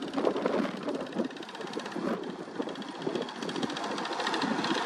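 Long-boom excavator with a vibratory sheet-pile hammer running, a steady heavy mechanical din with a fast, even rattle.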